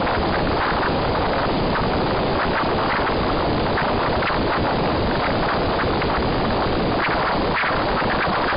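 Static hiss from a software-defined radio's demodulated audio while an RTL2832U/R820T USB dongle is tuned to a 2.4 GHz WiFi signal. It is a steady, even noise with faint, irregular crackles flickering through it.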